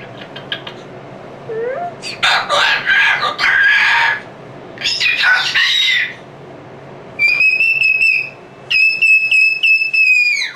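Moluccan cockatoo calling loudly: two harsh, noisy screeches about two and five seconds in, then two long, steady, high-pitched screams, the second dropping in pitch as it cuts off.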